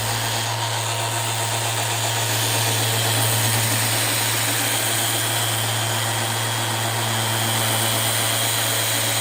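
Electric sander running steadily with a constant hum and an even rush of noise, smoothing the bonded seam of a countertop.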